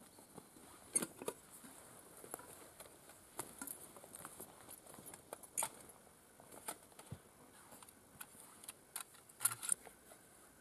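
Camp cooking gear being handled and set out on the ground: scattered small clicks, clinks and knocks, the sharpest about a second in and a quick cluster near the end.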